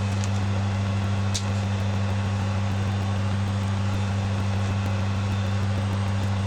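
Steady low mechanical hum that does not change, with a faint click about a second and a half in.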